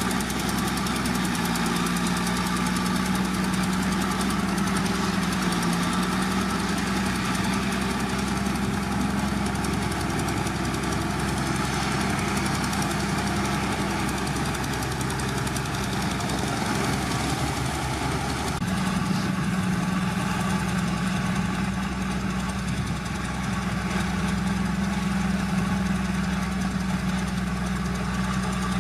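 Heavy diesel engine of earthmoving machinery running steadily. Its note weakens for a few seconds past the middle, then comes back strong.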